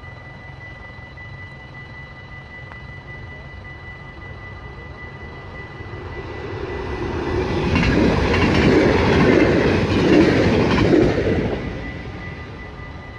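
Yellow NS double-deck electric passenger train passing close by. Its noise builds from about six seconds in, is loudest for about three seconds as it goes past, then fades away.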